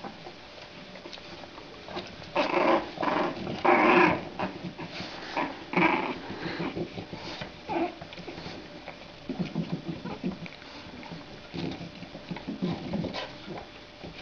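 Four-week-old French bulldog puppies growling and crying in play, a run of loud, sharp cries a couple of seconds in, then lower, rumbling growls later on.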